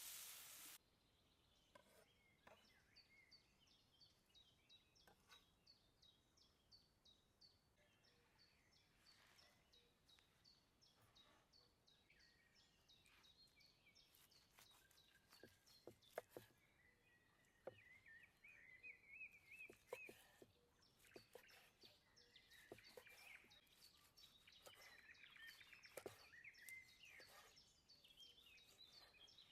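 Faint birdsong in woodland: short chirps repeated about twice a second, with a warbling phrase later on. Scattered light clicks and taps are heard throughout. A sizzle from food on a hot stone cuts off under a second in.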